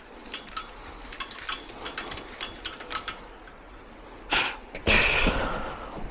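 Small metallic clinks of tools and metal parts being handled, with a faint ring to them, during the first three seconds. A sharp knock comes about four seconds in, then a louder scraping clatter that fades.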